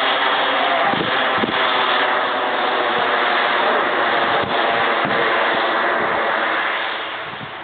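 Gas turbine engine of a radio-controlled model jet running loud and steady, a dense rushing hiss that fades about seven seconds in.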